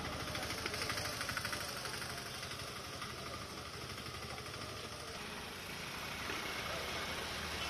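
Engine of heavy machinery running steadily, with a fast, even throb.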